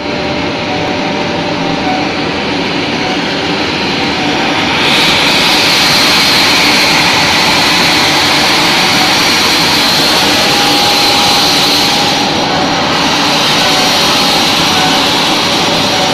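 ACM air classifier grinding mill line running loud and steady while grinding cocoa cake to powder: a constant mechanical whir with steady tones under a rush of air. A brighter hiss rises about five seconds in and eases off about twelve seconds in.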